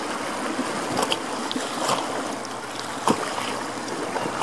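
River riffles: a steady rush of shallow, choppy water, with a few sharper splashes, the loudest about three seconds in.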